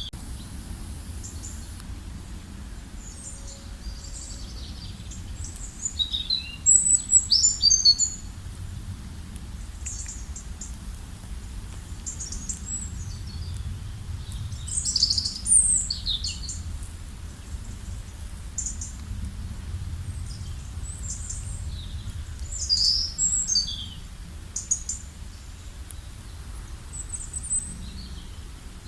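Several small birds chirping and calling in short high bursts, with louder flurries about six to eight seconds in, again around fifteen seconds and around twenty-three seconds, over a low steady background rumble.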